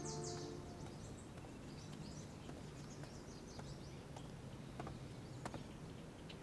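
Faint bird chirps over quiet ambient background, with a couple of light clicks about five seconds in; the last of the background music fades out just after the start.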